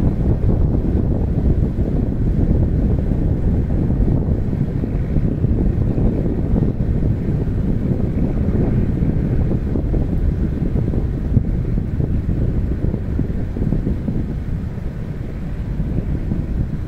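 Wind buffeting the microphone: a loud, steady low rumble with no distinct bangs.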